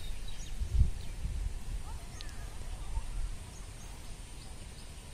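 Open-air rural ambience: an uneven low rumble of wind on the microphone, loudest near the start, with faint, scattered bird chirps.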